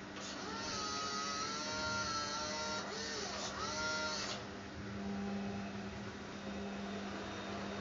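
Electric drive motor and gearbox of a Tamiya Scania R620 radio-controlled truck whirring, a steady hum that grows louder about five seconds in.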